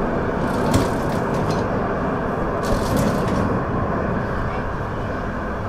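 1969 Duewag GT8 articulated tram running in service: a steady rumble of its motors and wheels on the rails, with two short hissing bursts about half a second and two and a half seconds in.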